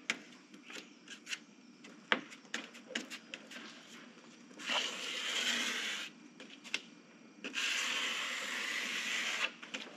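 Plastic trowel scraping structural putty along a fiberglass panel: scattered light taps and clicks, then two long scraping strokes, the second the longer.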